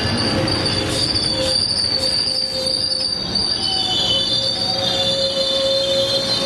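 Train wheels squealing against the rails: a steady high-pitched squeal, joined by a lower squealing tone that grows stronger about four seconds in, over the rumble of the moving train.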